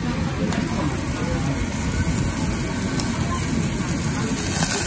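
Meat sizzling on a small tabletop yakiniku grill over the steady low rumble of the grill's smoke-extraction fan, with a couple of faint clicks from metal tongs. The sizzle grows brighter near the end as the slice is moved on the wire mesh.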